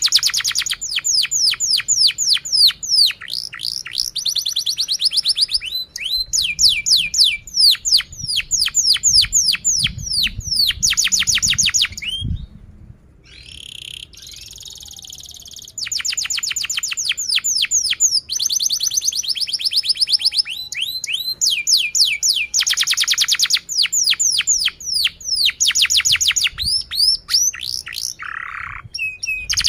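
Domestic canary singing a long, continuous song made of rapid trills, each a fast run of repeated high sweeping notes, phrase after phrase with hardly a break. The song turns briefly softer about halfway through.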